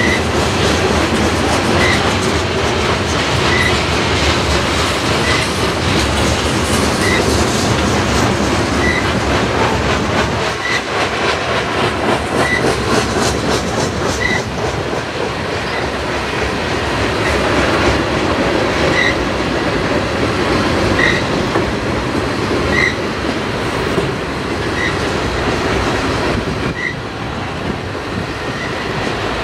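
Freight train of covered hopper and tank cars rolling past, steel wheels clicking over the rail joints in a steady clickety-clack. A short high squeak recurs about every second and a half to two seconds.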